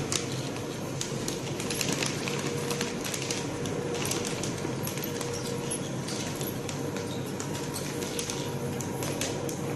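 Steady machine hum with a faint constant tone, overlaid with irregular sharp clicks and crackles.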